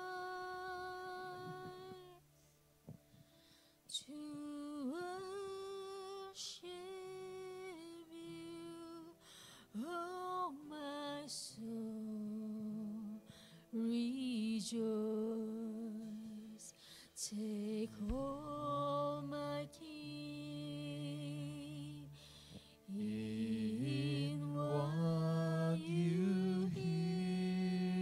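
Slow worship music with singing: long, wavering vocal notes in phrases separated by short pauses.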